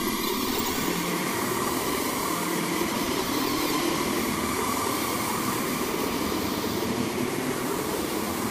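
Experimental drone ambient music: a dense, steady wall of electronic noise with a rumbling, machine-like texture and no beat or melody.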